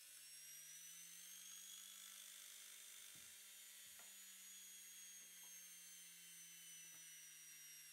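Haier washing machine universal motor, fitted with new brushes, spinning with no load on a variac supply, giving a faint high whine and a low hum. The whine climbs slightly, then slowly drops in pitch. A few faint clicks sound partway through.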